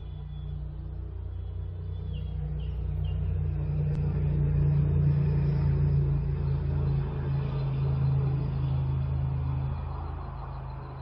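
Low, steady mechanical rumble that builds over several seconds, holds, then fades near the end.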